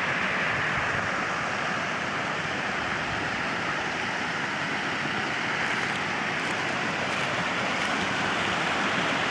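Steady rushing of creek water flowing at a beaver dam, an even wash of sound with no change.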